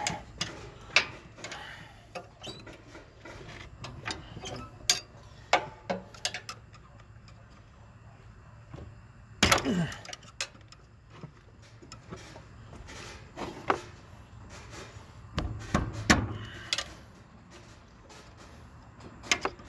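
Irregular knocks, clicks and clanks of hand tools working on metal parts of a zero-turn mower's steering linkage while its steering dampener is being removed, with a louder, longer scrape about halfway through and a cluster of heavier knocks later on.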